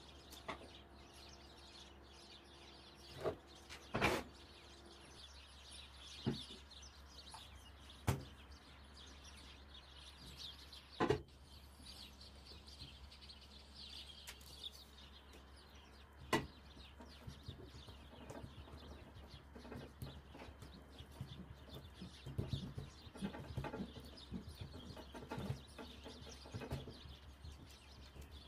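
Dough being handled and pressed out by hand on a wooden table: several sharp knocks in the first half, then softer patting and rubbing toward the end, over a steady low hum. Faint bird chirps in the background.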